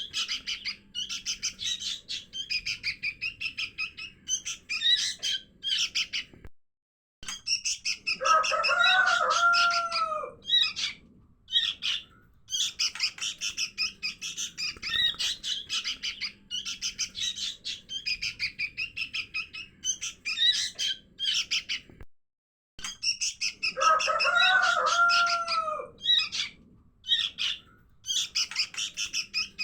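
Young sooty-headed bulbuls (kutilang) calling: dense, rapid high chirps, a lure recording made to draw wild bulbuls down, repeating as a loop about every 15 seconds. Twice, about a third of the way in and again near the end, a lower, fuller call with rising-then-falling notes sounds over the chirping.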